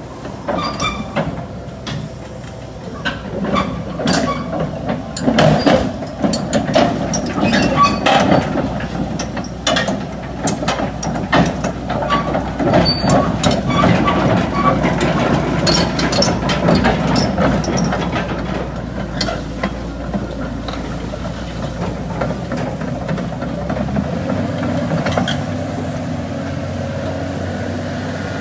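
Heavy earth-moving machinery working: a diesel engine running under many sharp metallic clanks and knocks, which thin out into a steadier engine drone in the last third.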